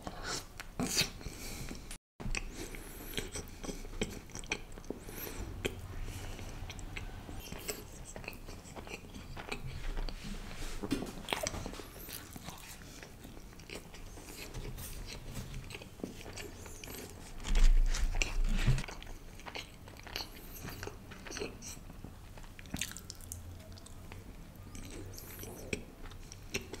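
Close-miked chewing of a pita sandwich of falafel and hummus: wet mouth smacks and crunchy bites, with a louder low bump about eighteen seconds in.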